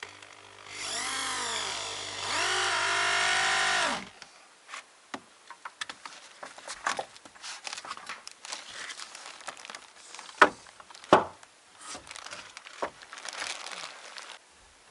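Drill-driver screwing wooden battens to the rafters in two runs, its motor whine dipping and bending in pitch under load and stopping abruptly. Then scattered clicks, knocks and scraping of boards being handled, with two sharp knocks, the loudest sounds, about ten and eleven seconds in.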